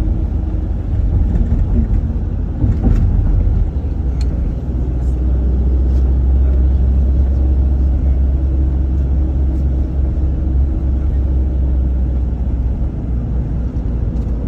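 Steady low rumble of a vehicle driving along a road, heard from inside the cabin, with a few clicks in the first half.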